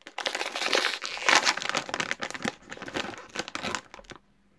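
Plastic snack bag of pretzels crinkling and rustling loudly as it is handled open, with a short lull near the end.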